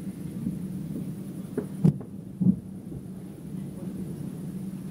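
Distant aerial fireworks shells bursting: three booms in quick succession about two seconds in, the second loudest, over a steady low rumble.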